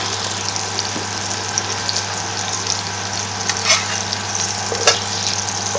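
Minced-meat shami kababs sizzling as they shallow-fry in a little oil in a frying pan: a steady crackling hiss. About four seconds in, a metal spatula scrapes and taps against the pan as it slides under a kabab to turn it.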